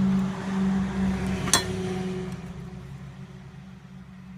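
Steady low mechanical hum, as of an engine running nearby, loudest in the first two seconds and then fading away. A single sharp metallic click comes about a second and a half in.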